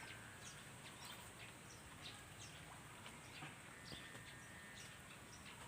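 Faint outdoor ambience with scattered short bird chirps and a brief thin whistled note about four seconds in.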